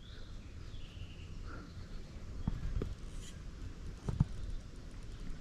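Outdoor ambience: a steady low rumble with faint bird chirps, and two pairs of light clicks, the first about halfway through and the second about four seconds in.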